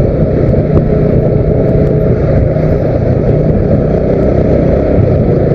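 Steady engine and road noise of a motor vehicle on the move.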